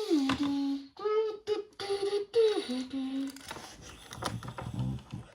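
A boy's voice humming a vocal sound effect: a high note sliding down and held, a quick run of short notes, then another high note sliding down and held. Faint clicks and taps follow near the end.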